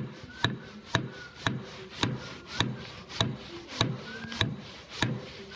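Steady hammer blows on metal, about two a second, each a sharp strike with a short ring after it.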